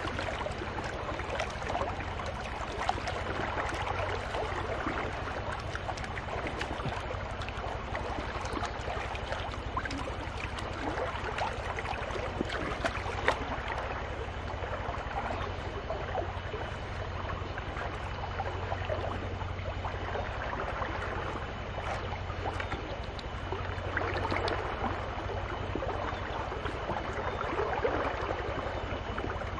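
Water sloshing and splashing in a wide wooden gold pan (dulang) as it is swirled and dipped in shallow muddy water, washing off sediment, with scattered small clicks of grit and gravel.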